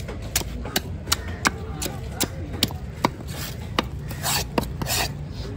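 A fish-cutting knife working a large chunk of fish on a wooden chopping block: sharp taps about two and a half times a second, then a few longer scraping strokes in the second half.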